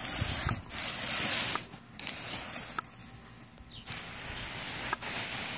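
Garden hose spraying a jet of water, a hiss that comes in spurts broken by brief pauses. It is loudest in the first two seconds and softer in the middle.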